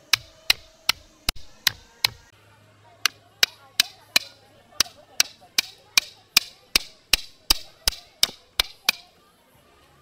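Hammer striking the plastic head of a metal tent stake, driving it into the ground: about twenty sharp strikes at a steady two to three a second, with a short pause after the first six.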